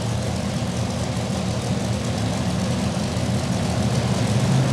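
Modified pulling tractor's engine running steadily at low speed, its deep note growing a little louder near the end.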